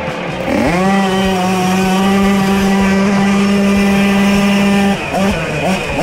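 Tuned 50 cc two-stroke racing moped engine revving up, then held flat out on one steady high note for about four seconds. Near the end the throttle comes off and it revs up and down.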